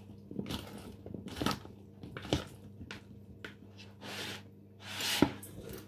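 Hands mixing oil-coated, spiced food pieces in a plate: irregular wet rustles and soft clatters, one or two a second, the loudest about five seconds in.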